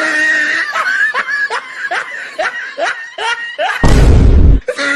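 Loud laughter in quick repeated pulses, about three a second. About four seconds in it is broken by a loud, deep burst of noise lasting under a second.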